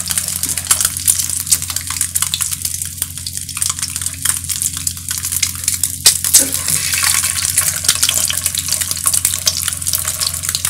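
Peeled boiled eggs sizzling in shallow hot oil in a non-stick frying pan: a steady dense crackle of small pops, with one sharper click about six seconds in.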